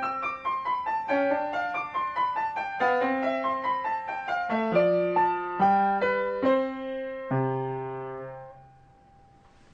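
Piano playing a gentle melody in single notes and chords. It slows, and the last low chord rings and fades away shortly before the end.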